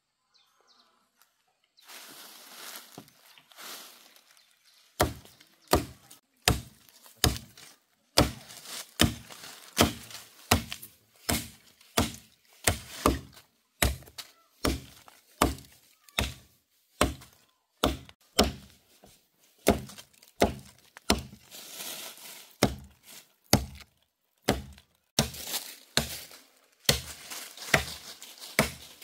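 A blade chopping into wood with steady, repeated strikes, about one and a half a second, broken by two short pauses. Before the strikes begin there is a little faint rustling.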